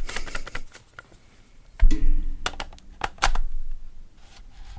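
Clicks and knocks of a lens being fitted to a DSLR's bayonet mount and the camera being handled, with one louder thunk about two seconds in.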